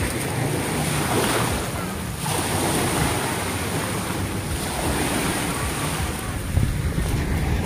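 Small waves washing in at the water's edge, in several swells, with wind buffeting the microphone and a jet ski's engine faintly humming offshore.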